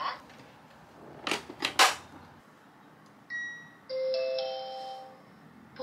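Electric rice cooker's lid being shut, with a few sharp clicks as it latches, then a beep from a front-panel button and a short rising electronic chime as the cooker is set to make yogurt.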